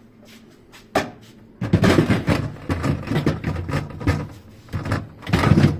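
A sharp click about a second in, then loud, irregular knocking and rattling of handling noise.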